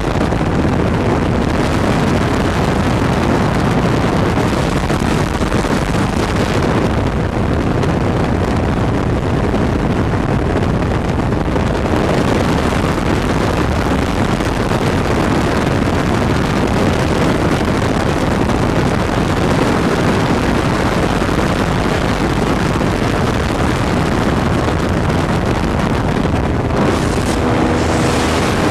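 Ultralight (microlight) aircraft in flight: steady engine noise mixed with wind rushing over the microphone.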